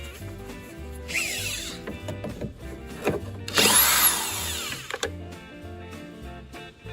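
Power drill spinning in two short bursts, the second longer at about a second and a half, over background music.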